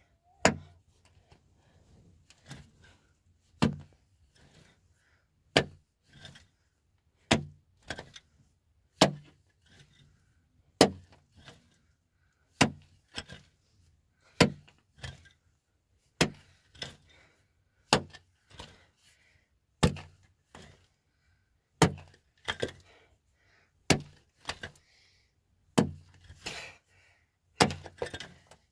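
A steady series of heavy blows, about one every two seconds, each followed shortly by a lighter knock.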